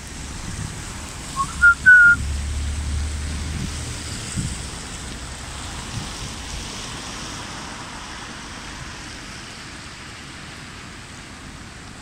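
Steady rushing noise of a flooded river in heavy rain. About two seconds in, three short whistle-like notes, each a little higher than the last, are the loudest sound.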